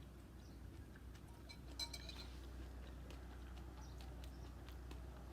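Faint clicks of a spoon against a cereal bowl, with one brighter clink that rings briefly about two seconds in, over a low steady hum.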